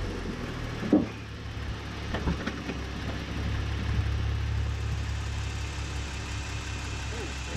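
Jeep engine running with a steady low hum, and a sharp knock about a second in followed by a couple of lighter knocks: the front sway bar striking the plastic fender liner as the suspension moves over small bumps.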